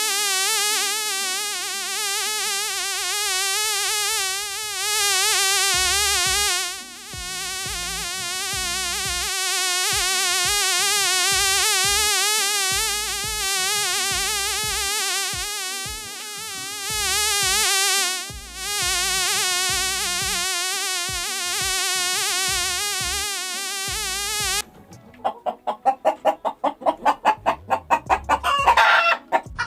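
A sustained electronic warbling tone, its pitch wobbling quickly, over a low pulsing beat; it cuts off suddenly about 25 seconds in. Rapid clucking, typical of a chicken, follows near the end.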